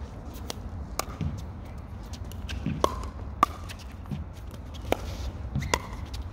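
Pickleball rally: about five sharp pops of solid paddles striking a plastic pickleball, irregularly spaced, each with a short hollow ring. A steady low rumble runs underneath.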